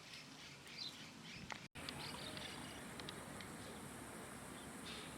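Faint bird chirps, short high calls coming again and again over steady outdoor background noise. There is a brief total dropout about a second and a half in, where the recording cuts to another clip.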